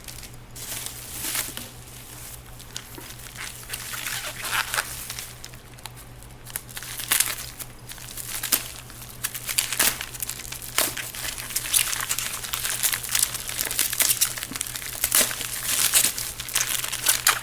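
Plastic snack wrappers crinkling and rustling as packets of biscuits are handled and opened, in irregular bursts that grow louder and busier in the second half.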